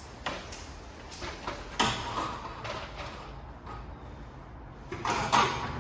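A handful of separate metal knocks and clanks as metal gear is handled, the loudest about two seconds in and another near the end that rings briefly.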